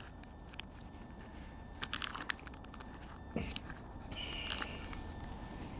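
Quiet eating sounds: chewing, with a few light clicks and a brief rustle as food is taken from a boil-in-the-bag pouch.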